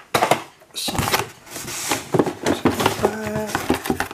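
Cardboard box and plastic blister packaging being handled and rummaged through, a run of rustling, crinkling and quick clicks and scrapes.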